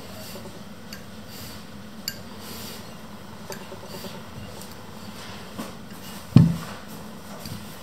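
Metal fork scraping and tapping against a ceramic bowl while mashing glue, with scattered light clicks and one louder knock a little past six seconds in.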